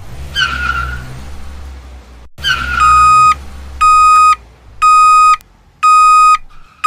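Garbage truck engine rumbling with a brief squeal near the start and again about two seconds in. From about three seconds in, its reversing alarm beeps steadily about once a second as it backs up.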